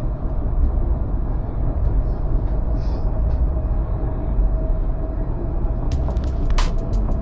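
Tram running along its track: a steady low rumble with a thin constant whine. About six seconds in, a quick run of sharp clicks and rattles starts.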